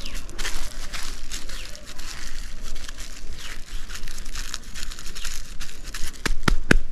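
Thin plastic bag crinkling as hands squeeze and handle it where it is wrapped around a mango branch air layer. A quick run of sharp clicks comes near the end.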